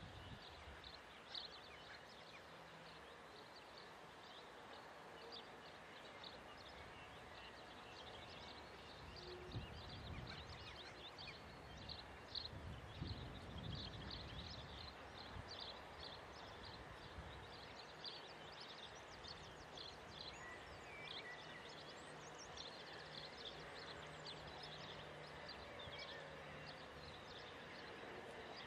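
Faint outdoor ambience: small birds chirping, many short high calls, over a low steady background noise.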